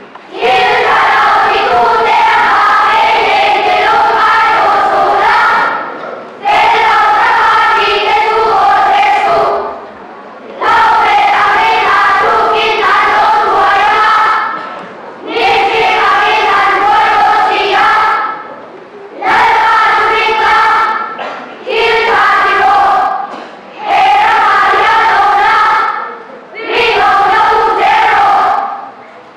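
A large group of children's voices reciting Bible verses together in unison in Mizo, with a chant-like sing-song. They speak in phrases of a few seconds each, with short breaks between them.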